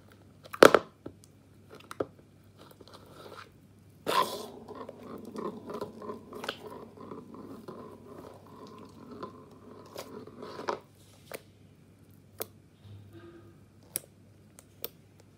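Slime being poked, pressed and squished by hand, making sticky squelches and small air-bubble pops. A sharp click near the start is the loudest; a dense run of crackling follows from about four to eleven seconds in, then a few scattered pops.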